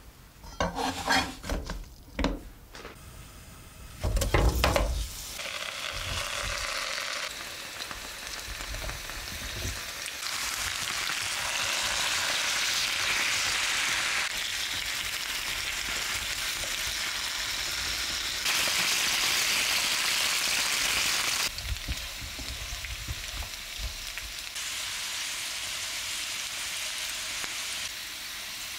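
Handful of knocks, then a heavy thump about four seconds in as sliced raw potatoes go into hot vegetable oil in a nonstick frying pan. The slices then fry with a steady sizzle while a spatula turns them, the sizzle stepping louder and softer several times.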